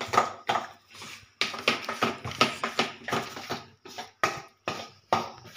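A spoon beats thick ground-dal vada batter in a stainless steel bowl, clinking against the bowl about three times a second with a short pause near the start. This is the batter being whipped in one direction to make it light and fluffy.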